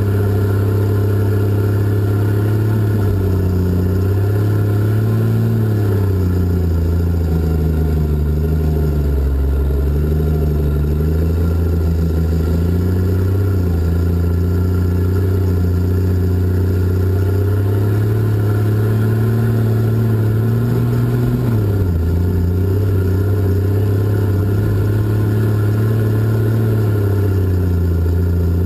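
Diesel engine of a Cat 627 scraper running loud as it hauls dirt, heard from the cab. Its pitch drops and comes back up several times.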